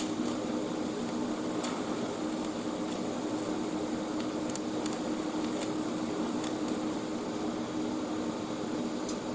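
Steady hum and hiss of a Parweld XDI 201 TIG welding set at work, with the arc melting a nickel filler rod into cast iron. A few faint ticks.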